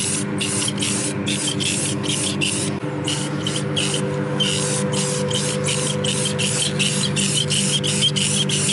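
Aerosol spray can of Rust-Oleum clear coat hissing in many short bursts with brief pauses between them, over background music with sustained tones.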